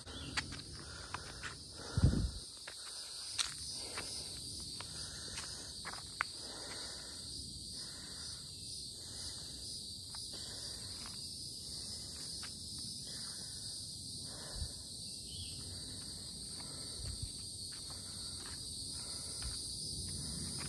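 Steady, high-pitched chorus of insects, with scattered footstep clicks on a trail in the first few seconds and a loud thump about two seconds in.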